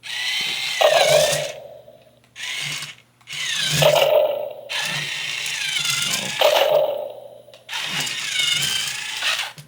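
Remote-control Godzilla toy's electric motor and gears whirring in several stop-start bursts as it turns left and right, with low stomping thuds mixed in.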